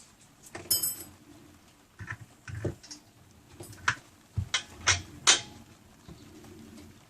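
Metal parts and tools being handled while the air compressor is assembled: a ringing metallic clink about a second in, then a run of sharp clicks and knocks, the loudest near the end.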